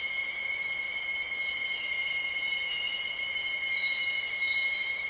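Steady, shrill insect chorus: several high-pitched tones held at once without a break.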